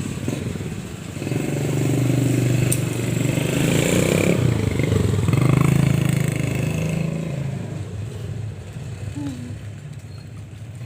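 A motor vehicle's engine passing close by on the road, growing louder over the first few seconds and fading away after about seven seconds.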